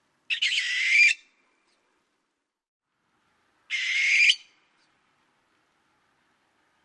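Barn owl screeching: two harsh, hissing screams, each under a second long, about three seconds apart.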